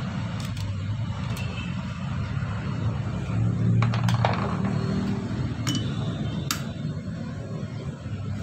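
Sharp metallic clinks and taps of hand tools against a car air-conditioning compressor's clutch pulley and plate during reassembly, several scattered strikes over a steady low rumble.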